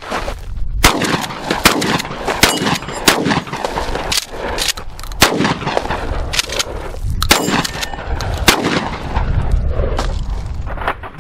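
A Mossberg Maverick 88 12-gauge pump-action shotgun firing a string of shots, with the pump worked between them. Steel plate targets ring when hit.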